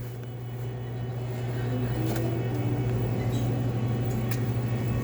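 A steady low mechanical hum of machinery, growing a little louder over the first couple of seconds, with a few faint clicks.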